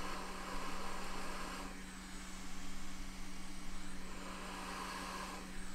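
Steady low electrical hum from bench equipment, under a soft hiss that swells twice.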